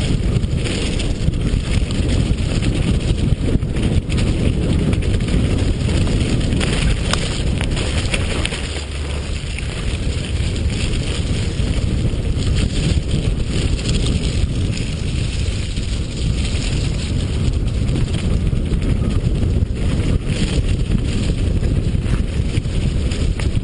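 Wind buffeting the microphone of a camera riding down a dirt mountain-bike trail at speed, over the rumble of tyres on the dirt and frequent knocks and rattles as the bike hits bumps.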